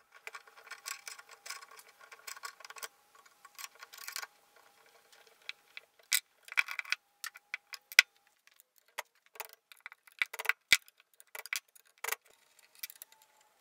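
Metal clicks and clinks of a puller being fitted and worked to draw the pulley off a single-phase electric motor's shaft, then a few sharp mallet blows on the shaft near the end.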